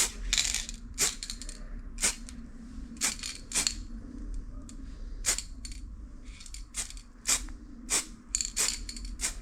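Montana marble-effect aerosol spray can being tapped in a dozen or so short, irregular hissing bursts, laying down the web-like white marble pattern.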